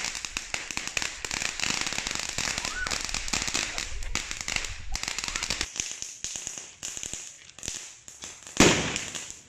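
Fireworks crackling: a dense run of rapid sharp pops that thins out a little over halfway through, with one louder bang near the end.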